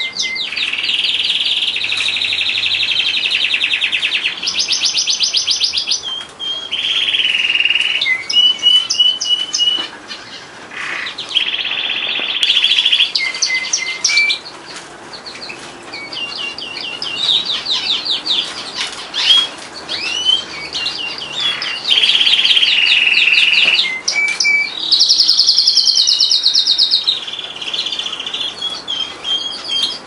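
Frill canary singing a long, loud song made of rapid trills, each a run of quickly repeated notes, switching to a new trill every second or two with short breaks between phrases.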